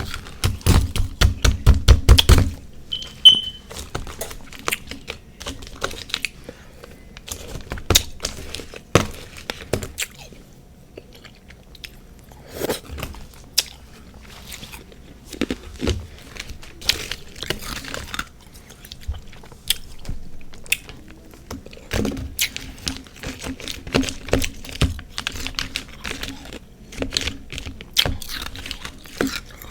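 Crunching and chewing of refrozen freezer frost mixed with powdered sugar and whipped cream. A dense run of crunches comes in the first two seconds, then scattered bites and crunches follow.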